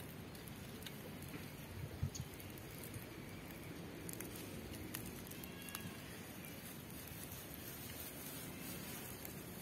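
Faint outdoor ambience: a steady low hiss, with a couple of low thumps about two seconds in and a few faint high chirps later on.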